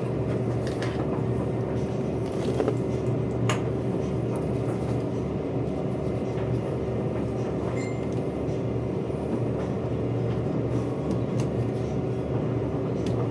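Steady machine hum with a constant tone and a pulsing low drone, with a few light clicks about one and three and a half seconds in.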